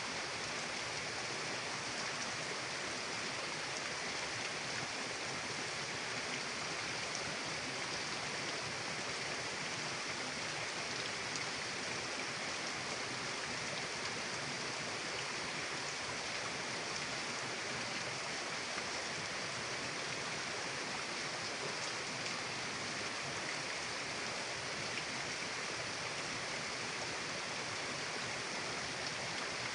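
Steady rush of a mountain river flowing, an even water noise with no change throughout.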